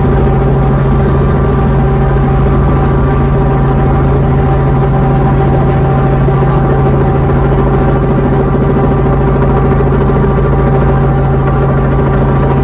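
A vehicle engine idling steadily: a loud, constant low hum with overtones that holds one pitch throughout.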